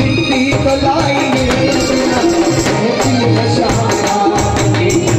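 Loud devotional bhajan music through PA loudspeakers, with a steady drum beat and rattling percussion under it.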